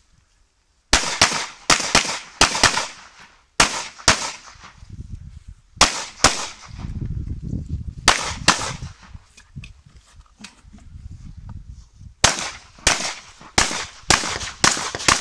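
Pistol shots fired in a practical shooting course of fire, mostly as quick pairs of sharp cracks. A fast cluster comes about a second in, then lone pairs spaced a couple of seconds apart, then a rapid run of shots near the end. A low rumble fills the gap in the middle.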